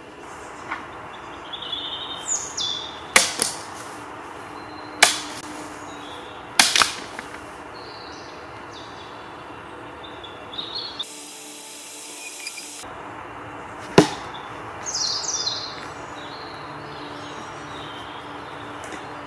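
Katana cutting through thick bamboo: a run of sharp swishing cuts spread over the first fourteen seconds or so, some coming in quick pairs. Birds chirp in the background.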